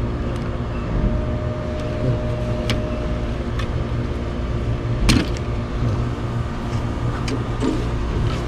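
Steady low mechanical hum throughout, with scattered clicks and rattles of wires and plastic connectors being pulled apart inside an open air-conditioner unit; the loudest is a sharp click about five seconds in.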